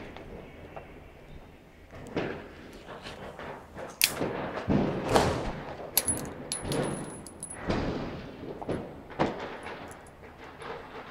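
Metal clicks and clinks of a .32 revolver and its brass cartridges being handled for loading. Several sharp bangs with echoing tails go off around it, the loudest about five seconds in.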